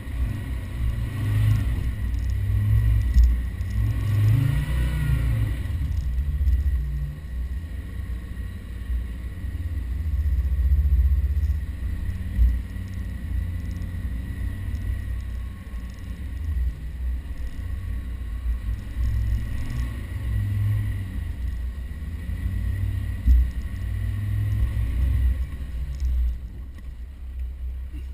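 Land Rover Defender 110 engine running and revving up and down as it drives over soft sand, under a heavy low rumble, with two sharp knocks, one about midway and one later on.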